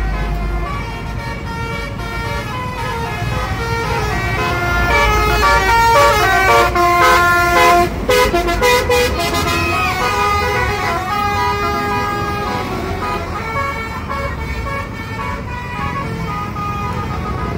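Basuri musical bus horn sounding through roof-mounted trumpets, playing a tune in stepped notes that is loudest from about a third of the way in to past the middle. A low vehicle rumble runs underneath.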